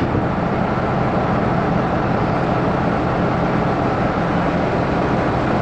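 Steady industrial machinery noise with a low hum, running evenly without a break.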